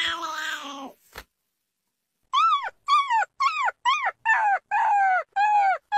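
A small black puppy crying in a run of about eight high whining yelps, roughly two a second, each rising then falling in pitch. A cat's short cry comes in the first second before them.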